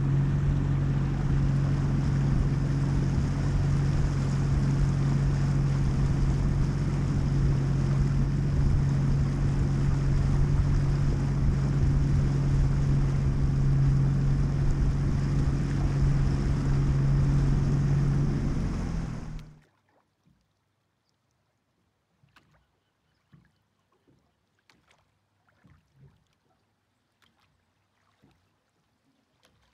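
Drift boat moving on a river: a steady low hum under even rushing water and wind noise. About twenty seconds in it cuts off abruptly, leaving near silence with a few faint light taps.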